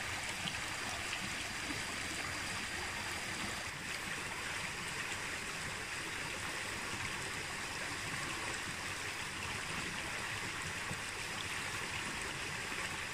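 Steady flow of a shallow creek running over rocks.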